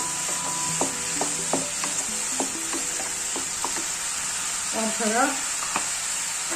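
Chopped bottle gourd sizzling in oil in a non-stick frying pan while a wooden spatula stirs it, tapping against the pan several times. A short voice-like sound comes about five seconds in.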